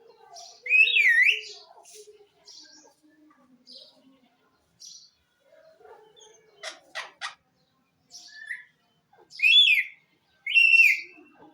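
Pet parrot calling, with three loud swooping whistles, one about a second in and two near the end, and softer short chirps between them. A few sharp clicks come around the middle.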